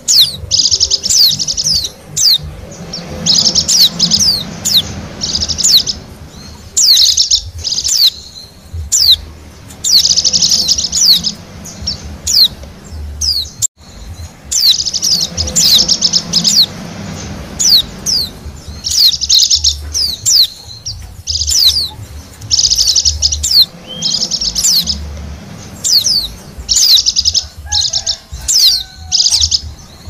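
Wild Bali pleci (white-eyes) twittering: bursts of rapid high chirps and quick sweeping trills, one after another, with a brief break about fourteen seconds in. This is a lure call played to draw wild pleci in for trapping.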